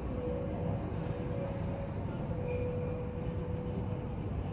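Steady airport ramp noise at a gate: a constant low rumble with a faint, steady whine on top, from machinery running around a parked airliner.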